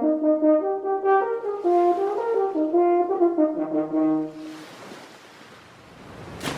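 French horn playing a lively melody of quick, short notes, which stops about four and a half seconds in. A soft, rising rush of noise follows.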